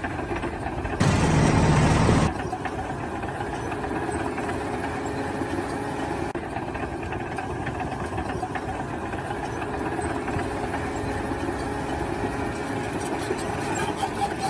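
Engine of heavy construction machinery running steadily, with a louder rush of noise about a second in that lasts just over a second.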